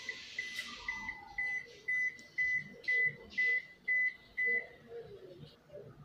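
Toshiba AW-A820MM top-loading washing machine's control panel beeping over and over, short high beeps about twice a second that stop after about four and a half seconds: its error alarm, sounding along with the blinking red error light.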